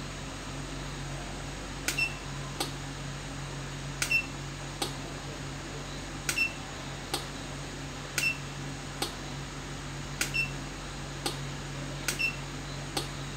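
Homemade box counter's buzzer giving a short high beep each time the count goes up, six times about two seconds apart. Each beep comes with a click, and a second click follows a moment later, over a steady low hum.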